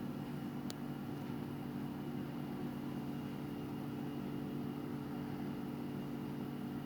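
A steady machine hum of several held low tones, unchanging throughout, with one faint tick about a second in.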